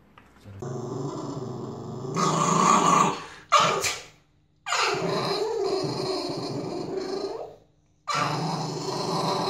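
Dogs growling in long, drawn-out snarling bouts, with a short sharp bark about three and a half seconds in. The later bouts are a Chihuahua snarling with bared teeth, an angry reaction to a raised middle finger.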